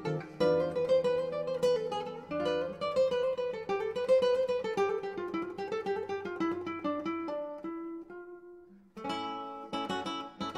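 Background music of acoustic guitar: a plucked melody over bass notes. It thins to a single fading note about eight seconds in, then strummed chords start again about a second later.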